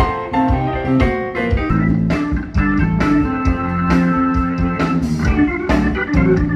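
Blues band playing: Hammond organ chords and guitar over a steady drum beat.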